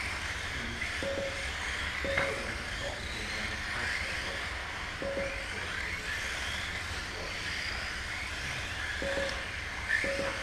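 Mini-Z 1:28-scale electric RC cars racing, their motors whining up and down in pitch as they speed up and brake through the corners. Five short beeps sound at uneven intervals, about a second in, at two, five, nine and ten seconds.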